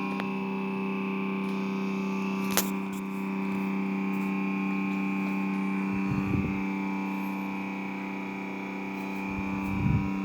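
Panasonic refrigerator giving off a steady whine of several pitches held together, a fault noise in a nearly new fridge that the owner calls beeping. A sharp click about two and a half seconds in, and two short low bumps, one about six seconds in and one near the end.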